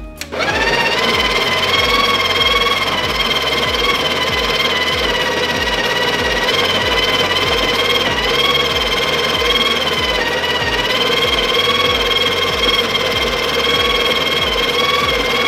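Breville Barista Express's built-in conical burr grinder starting up and running steadily, grinding a double-shot dose of beans into the portafilter.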